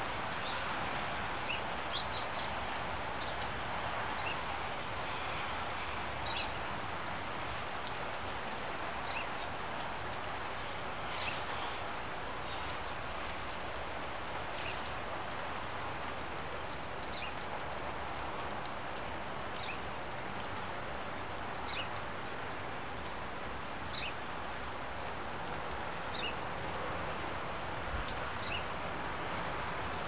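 Steady rain falling, with short high bird chirps every second or two.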